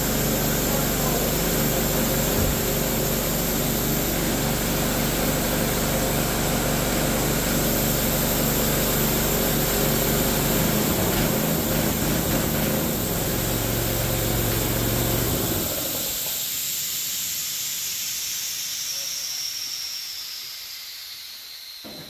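Predator 212cc single-cylinder engine on a gas-powered air compressor running steadily, now that the spark plug has been swapped: with the old plug it only popped and backfired. About fifteen seconds in it is switched off and its sound dies away, leaving a fading hiss.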